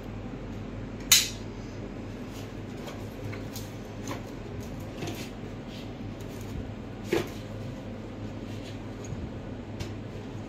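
Stainless steel plates and kitchen utensils clinking: a sharp clink about a second in and another about seven seconds in, with light knocks between, over a low steady hum.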